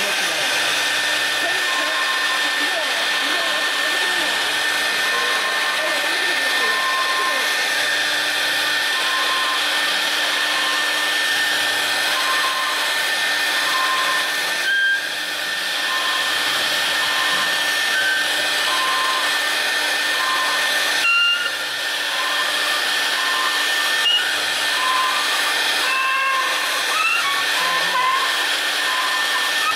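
Side-mounted spindle of a 4-axis CNC router running at high speed as it drills and mills into the side of a white foam block. It makes a steady high whine and hiss, with a short tone repeating about every second and a half. The sound dips briefly twice, about halfway and about two-thirds in.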